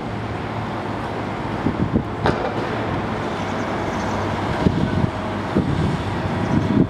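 Long-reach demolition excavator's diesel engine running steadily amid city traffic, with a single sharp clank about two seconds in and a few duller knocks later.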